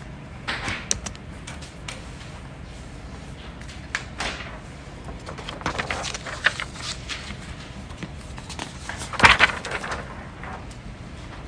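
A person hiccupping: short, sudden hics spaced a few seconds apart, with a small cluster about six seconds in and the loudest hic about nine seconds in.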